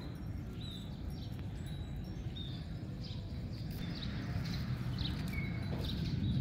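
Small birds chirping in short, repeated high notes over a steady low outdoor rumble that grows louder near the end.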